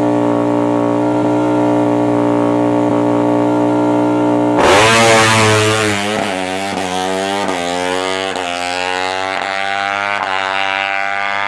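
Yamaha MX King's 150 cc single-cylinder four-stroke racing engine, held at steady revs, then about four and a half seconds in it opens up sharply and its pitch climbs in a run of rising sweeps that each drop back, about every 0.7 seconds.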